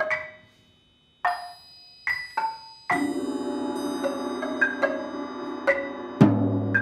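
Live contemporary percussion trio: single mallet strokes on keyboard percussion ringing out, with a brief near-silent pause. From about three seconds in, a sustained low rolling texture sounds under scattered pitched mallet notes, and a deep low stroke comes near the end.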